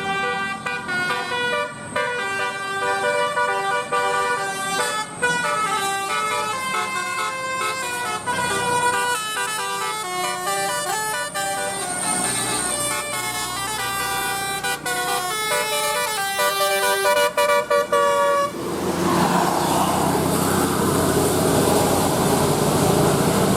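Bus 'telolet' multi-tone air horn playing a fast tune of quickly changing notes. About two-thirds through the notes stop and a louder rushing noise takes over.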